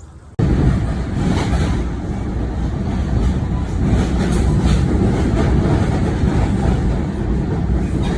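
Steady loud rumble of a moving vehicle, starting suddenly about half a second in.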